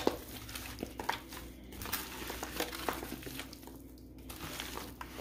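Spatula stirring a thick casserole mix with frozen broccoli florets in a large enamel roasting pan: irregular squishing and rustling with a few light scrapes and clicks against the pan.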